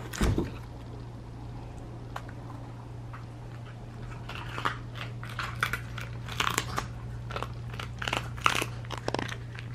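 A small dog chewing a hard dog treat: irregular crisp crunches begin about four seconds in and come thicker toward the end. A single brief thump comes just at the start.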